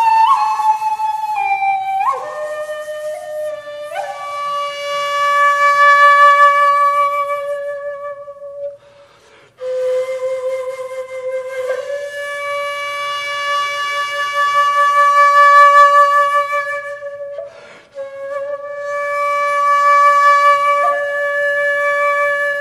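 Solo shakuhachi, the Japanese end-blown bamboo flute, playing slow, long held notes with a breathy tone. Each note swells and fades, with small pitch bends and slides between notes. Two short breaks for breath come about nine and eighteen seconds in.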